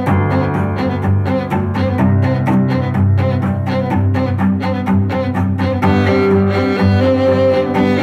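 Background music led by low bowed strings: sustained notes over a quick, steady pulse, with the chord changing about two seconds in and again near six seconds.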